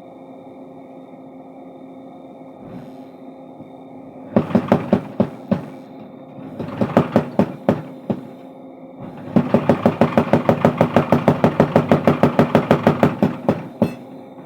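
Mechanical power hammer forging a steel crowbar bar: the machine's motor hums steadily, and the ram strikes the hot steel in three runs of rapid, even blows. The last run is the longest, at about five blows a second.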